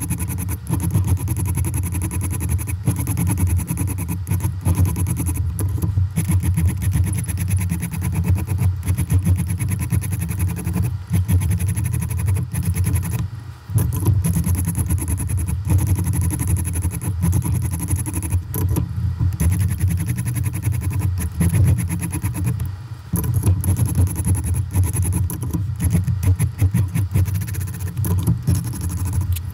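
Sped-up sound of a 140-grit stone on a KME guided sharpener being stroked rapidly back and forth along a knife's edge, reprofiling the bevel: a dense, continuous run of quick scrapes. It breaks off briefly about 13 and 23 seconds in.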